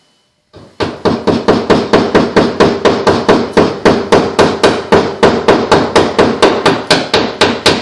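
Hammer tapping a plastic drywall anchor into a drilled hole in drywall. The light, rapid strikes come about four a second and start about half a second in.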